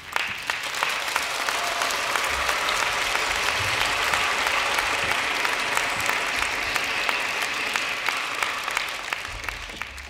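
Audience and choir applauding: a dense clapping that breaks out suddenly and thins out near the end.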